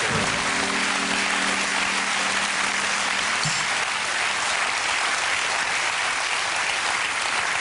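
Studio audience applauding steadily. Under the applause, a held musical chord from the band ends about three and a half seconds in.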